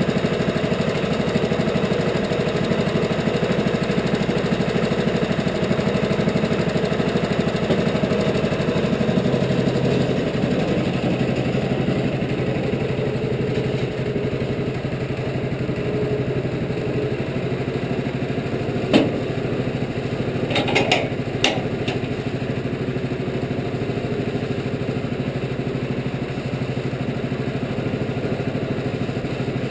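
Wood-Mizer LT15 portable sawmill's gas engine running steadily at an even speed, with a few sharp knocks about two-thirds of the way through.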